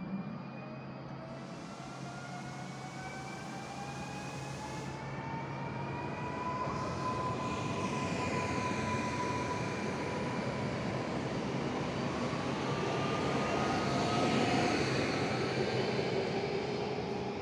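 ED78 electric multiple unit running, its traction motors whining in several tones that rise in pitch over the first few seconds and then hold steady, growing louder to a peak near the end.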